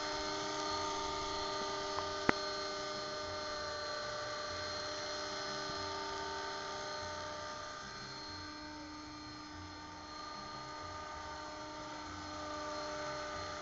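Radio-controlled Agusta A109 scale helicopter on Mini Titan electric mechanics, hovering and manoeuvring: a steady whine of motor, gears and rotor. A single sharp click comes about two seconds in. The whine drops somewhat past the middle and grows louder again near the end.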